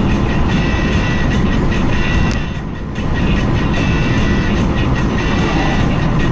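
Steady road and tyre rumble inside the cabin of a Great Wall Haval M4 driving on a highway, with a brief drop in loudness about two and a half seconds in.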